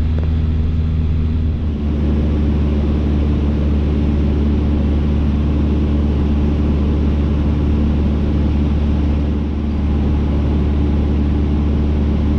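Cessna 152's four-cylinder Lycoming engine and propeller droning steadily in level cruise: a strong low hum with a few steady tones above it and a constant airflow hiss.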